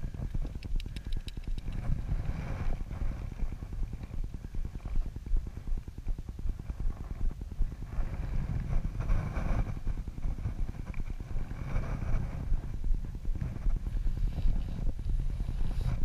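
Wind buffeting the camera microphone: a low, gusting rumble that rises and falls unevenly.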